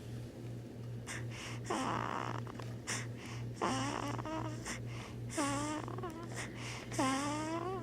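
A newborn baby making noises in her sleep: about four short, squeaky grunting sounds a second or two apart, each bending up and down in pitch.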